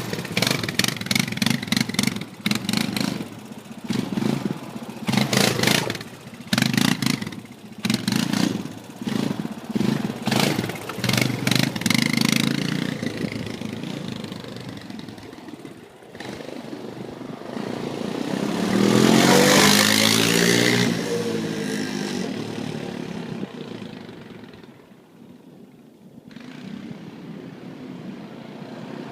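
ATV engine revved in quick repeated bursts for about twelve seconds. Later it runs past close by, loudest about twenty seconds in, its pitch rising and then falling, and then fades away.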